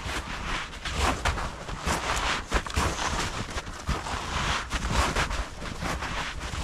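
Boots crunching through deep snow in repeated steps, with the scuffing of dogs ploughing through the snow alongside, over a low rumble of wind on the microphone.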